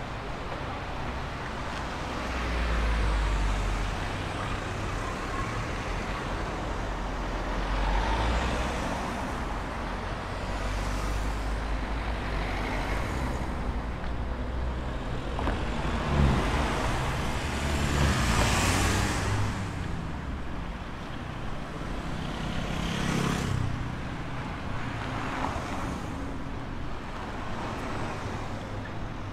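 Road traffic: several vehicles pass one after another, each swelling and fading with a rush of tyre noise, over a steady low rumble of traffic.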